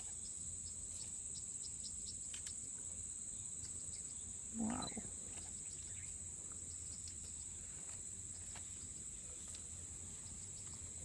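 Steady, high-pitched chorus of insects, with scattered short faint chirps over it.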